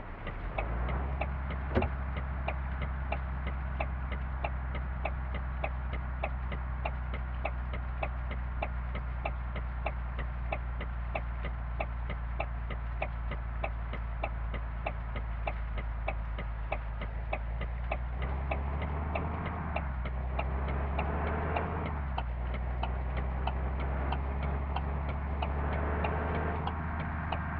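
A tour bus engine running with a steady low drone, with a regular ticking about twice a second over it. About eighteen seconds in, the drone shifts and grows fuller.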